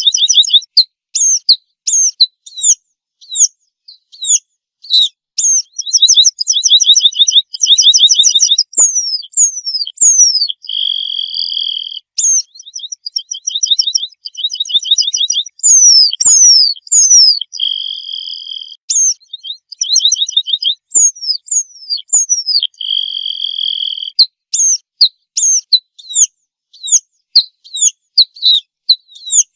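Red-throated pipit vocalizing: a run of short, sharply falling high notes mixed with fast trills. Three long buzzy notes, each about a second long, come in the middle stretch.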